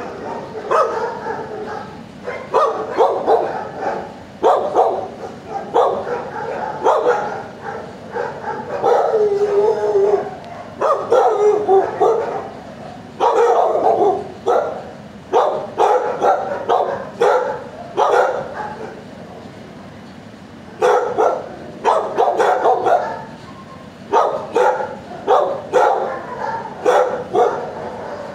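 Dogs barking in shelter kennels, repeated sharp barks in bursts with short lulls between.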